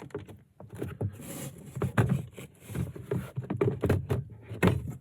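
Plastic glove box being pushed and unclipped from the dashboard: a run of clicks, knocks and rattles with a short scrape about a second in and sharper knocks about two seconds in and near the end.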